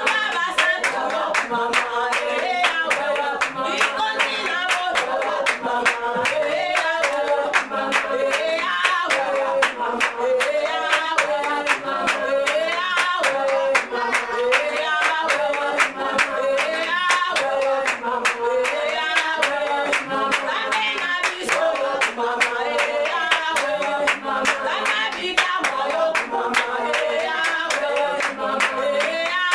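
Congregation singing a worship song and clapping their hands together in a steady, even rhythm.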